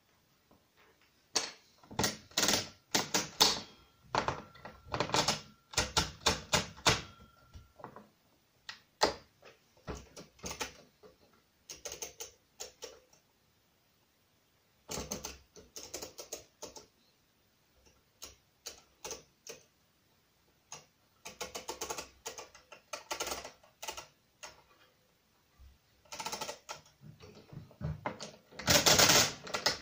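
Brunsviga pinwheel mechanical calculator worked by hand: irregular clusters of sharp metallic clicks and ratcheting as the setting levers are moved and the crank is turned, with short pauses between. The loudest, densest run of clicking comes near the end, with a hand on the crank.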